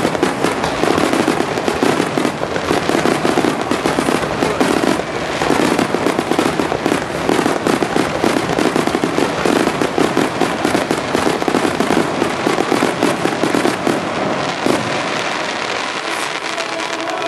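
Japanese star mine fireworks barrage: many shells bursting in a dense, unbroken run of bangs, with no let-up.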